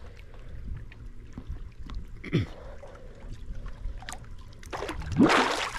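Gentle water lapping with small splashes around a person standing chest-deep in a lake. Near the end comes a sudden loud rush of splashing water and breath as a hand-fishing diver surfaces from underwater.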